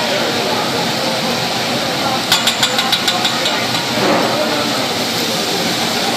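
A metal teppanyaki spatula and knife clicking rapidly against each other and the steel griddle, a quick run of about ten sharp clicks a couple of seconds in, over a steady hum and hiss from the hot griddle.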